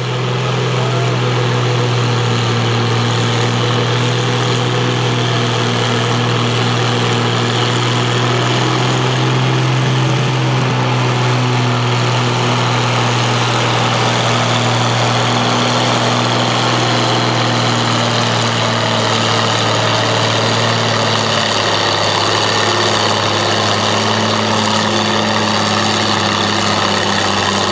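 Oliver Super 77 tractor engine pulling a weight-transfer sled under load, a loud steady drone that drops to a slightly lower pitch a little over twenty seconds in as the pull ends.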